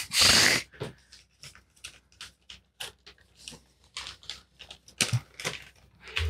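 Headphones and their ear padding being handled close to studio microphones: scattered rustles and small plastic clicks, with a louder burst of noise at the start and another cluster about five seconds in.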